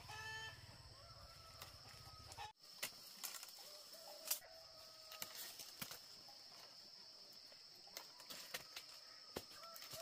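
Chickens clucking faintly, with a few short calls and scattered light clicks.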